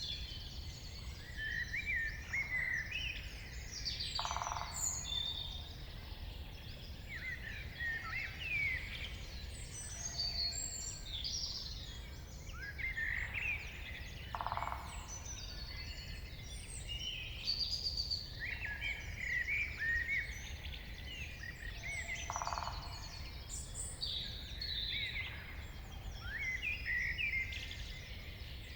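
Morning chorus of several woodland birds singing at once, overlapping chirps, trills and whistled phrases, over a low steady rumble. A short, lower call repeats about every eight to ten seconds.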